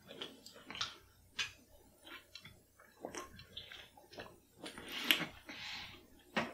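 Mouth noises of eating quail eggs and their liquid straight off a plate: short wet smacks and clicks of chewing and slurping, with a longer slurp about five seconds in.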